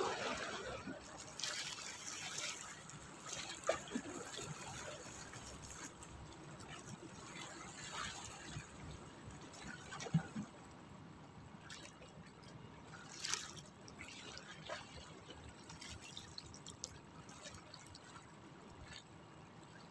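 Small sea waves lapping and sloshing against shoreline rocks, with a few sharper splashes scattered through.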